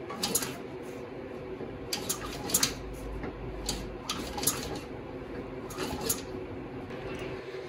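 Light metallic clicks and clinks, a handful spread at uneven intervals, as a steel bracket is held and shifted against a bicycle's rear frame stay, over a steady background hum.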